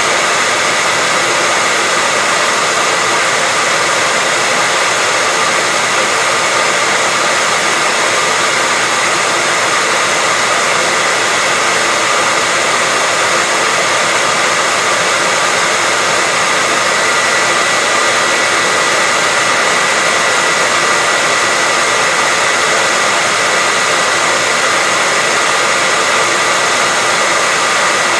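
Hair dryer running steadily: a continuous rush of air with a thin, steady high whine from its motor and fan.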